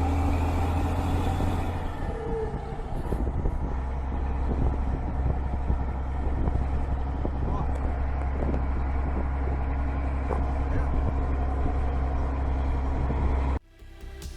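Scania 112 truck's straight-six diesel running steadily through a straight-through exhaust, with its injection pump and injectors freshly adjusted. The sound cuts off suddenly near the end.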